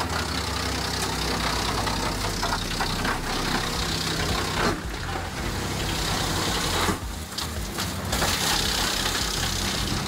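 Drum wood chipper and its conveyors running, a steady machine hum and rumble under a broad rushing noise, with the sound shifting abruptly twice, about five and seven seconds in.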